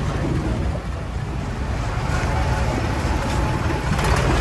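Longtail boat engine running steadily, a low drone that gets louder near the end.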